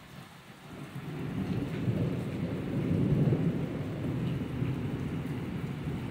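Thunder rumbling after a lightning flash: it builds about a second in, is loudest around the middle and fades near the end. Steady rain falls throughout.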